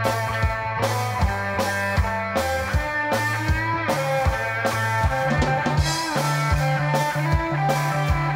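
Live rock band playing an instrumental passage: two electric guitars over a drum kit keeping a steady beat on the bass drum.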